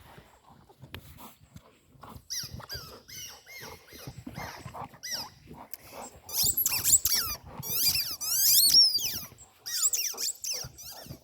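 A quick run of high squeaks that slide up and down in pitch, getting loudest about halfway through, with soft low knocks and rustles beneath.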